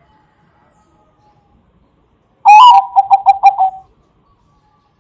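Zebra dove (bangkok perkutut) cooing once, about halfway through: an opening note followed by a quick run of about five short notes.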